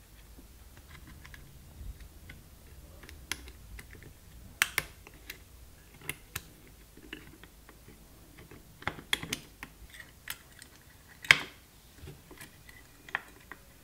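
Irregular light clicks and taps of small metal parts as component leads and a pointed tool are worked onto the turrets of an amplifier turret board. The sharpest click comes about two seconds before the end.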